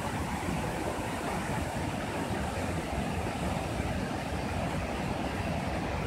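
Waterfall cascading over rocks into a pool: a steady rush of falling and splashing water.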